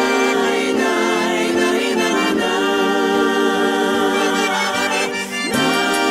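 Instrumental break of a pop song: sustained, steady chords from keyboard or accordion-like instruments, changing chord about five seconds in, with a light regular tick of percussion coming in near the end.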